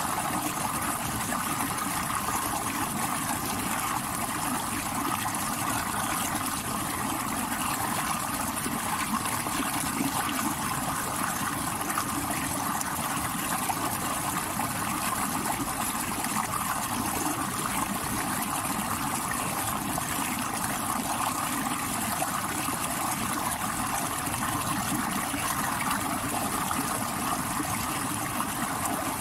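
Stream water rushing over rocks: a steady, even rush with no breaks or separate splashes.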